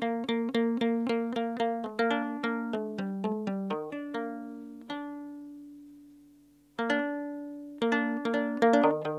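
Plucked lyre playing a quick repeating figure of ringing single notes over a held low note, about four notes a second. The notes thin out and the strings ring on alone for a couple of seconds past the middle, then the plucking starts again.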